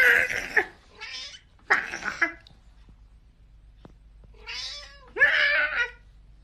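A cat meowing over and over: three calls in the first two seconds, a pause of about two seconds, then two more calls near the end.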